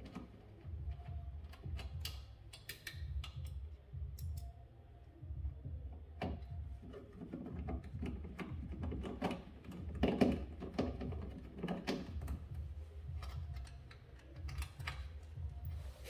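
Irregular small clicks, taps and light knocks of hands and a hand tool working the wiring at a refrigerator compressor, over a low rumble.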